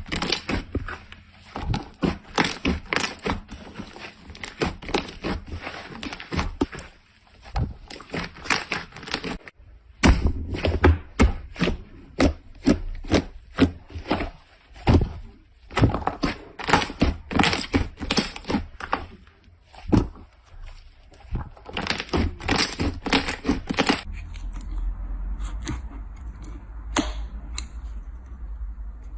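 Slime being squeezed and worked by hand, with rapid crackling and popping clicks from air pockets bursting. Near the end the clicks thin out over a low steady hum.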